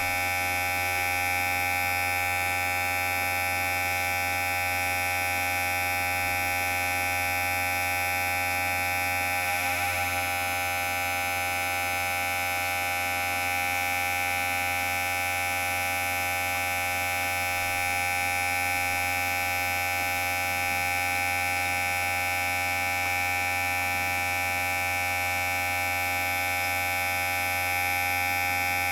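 Electric hair clipper running with a steady, unbroken buzz.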